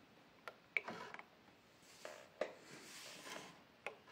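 Mechanical clicks and clunks from a JVC TD-V1010 cassette deck's transport being worked, about five sharp clicks with two short stretches of soft whirring between them.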